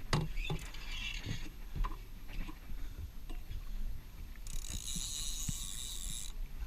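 Scattered clicks and knocks of fishing gear being handled on a small sport-fishing boat. In the second half, a steady high hiss runs for about two seconds, then stops suddenly.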